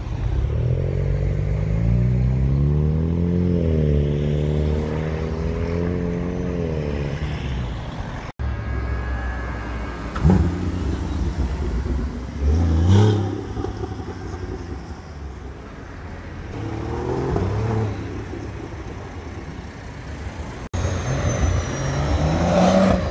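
Sports car engines accelerating and revving, in separate stretches that change abruptly. A Ford Mustang's engine climbs in pitch as it pulls away and then holds a steady note. After that a Porsche Boxster's engine revs in short sharp bursts, the loudest about halfway through, and near the end another car's engine rises as it accelerates.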